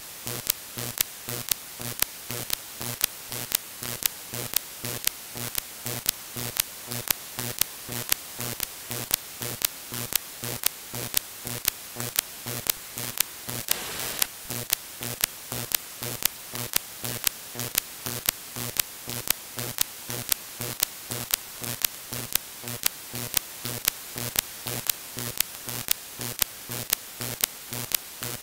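Radio interference on the 2 m amateur band heard as single-sideband receiver audio from a software-defined radio: a steady hiss broken by a sharp click about twice a second, with a low pulsing buzz in the same rhythm. It is the kind of man-made noise that interferes with a 2 m repeater.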